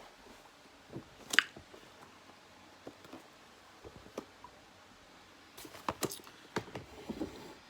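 A parcel's packaging being handled and opened by hand: scattered rustles and clicks, a sharp crackle about a second and a half in, and a busier run of crinkling near the end.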